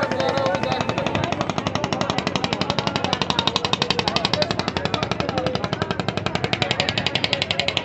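Engine of a crowded wooden river ferry boat chugging in a rapid, even beat of about ten pulses a second as the boat pulls away, loudest in the middle.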